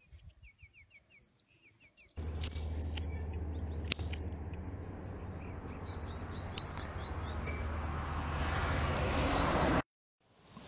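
A bird chirping in quick short notes. Then a loud, steady outdoor rushing noise with a low hum cuts in, swells, and stops suddenly near the end.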